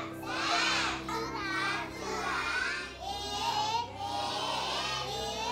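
Several children's voices, high and rising and falling in pitch, over quiet background music with a steady held tone.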